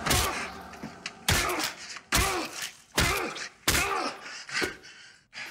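Cinematic trailer hits: a series of sudden heavy booming impacts, about one a second, each ringing out briefly before the next.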